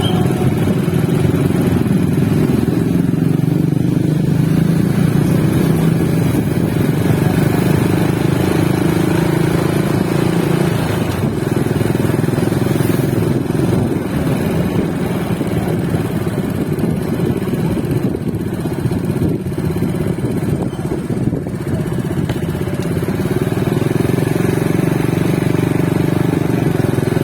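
Motorcycle traffic: engines running steadily and continuously, a dense low drone with no breaks.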